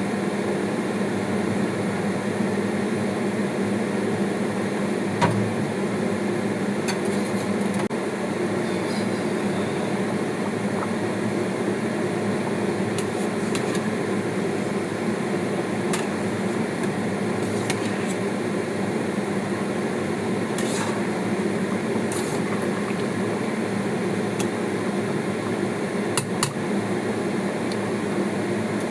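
Steady hum of a kitchen appliance's motor or fan running, with a few light clicks and clinks, the sharpest about five seconds in and a couple more near the end.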